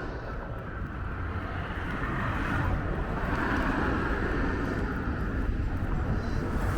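Road traffic: a vehicle's engine and tyre noise growing louder over the first few seconds, then holding steady.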